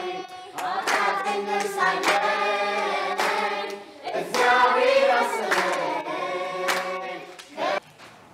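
Group of young children singing a song in Amharic together, with hand claps about once a second; the singing and clapping stop shortly before the end.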